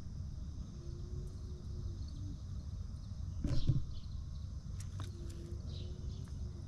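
Outdoor background with a steady low rumble and a faint hum that comes and goes twice. About halfway through there is one short, louder noisy sound, followed by a few faint clicks.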